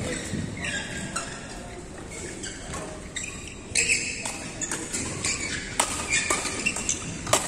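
Badminton rally: several sharp racket strikes on the shuttlecock, mostly in the second half, with short squeaks of court shoes and voices from the surrounding courts in a large hall.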